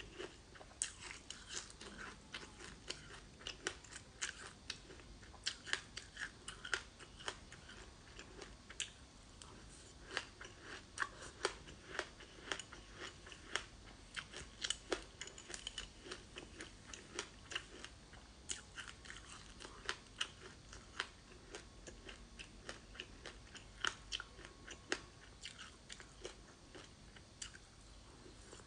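Close-miked chewing of frozen sesame seeds and passionfruit, with frequent sharp, crisp crunches several times a second.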